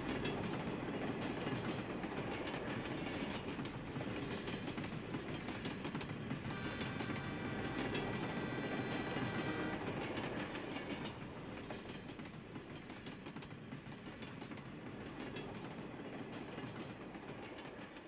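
Train running on rails, its wheels clattering, with a held high-pitched tone for about three seconds in the middle. The sound fades gradually through the second half.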